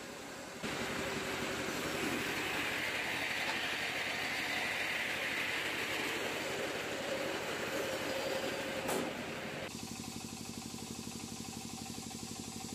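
Diesel generator and the electric silage baler-wrapper it powers, running. The sound changes abruptly about half a second in and again near ten seconds in, and the last part has a fast even pulsing.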